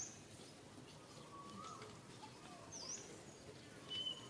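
Faint bird calls over a quiet outdoor background: a couple of short high chirps, near the start and about three seconds in, and a lower whistled note in between.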